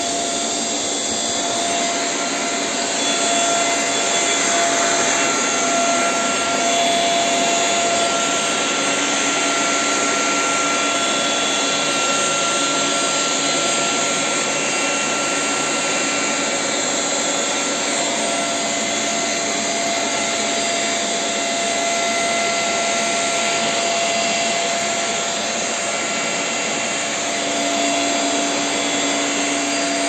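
Vacuum cleaners running: a steady whirring hum with constant high-pitched whine tones, from a stick vacuum pushed over a parquet floor and robot vacuum cleaners working around it.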